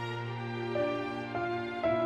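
Slow, soft background music: sustained notes, with new notes coming in one after another in the second half.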